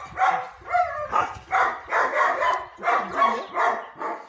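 Young German Shepherd dogs barking in quick succession, about two barks a second, as they are worked up against a decoy waving a bite pad in protection training.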